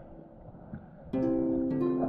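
Background music: after a quiet first second, a piece of plucked-string music begins suddenly, its notes ringing on in layers.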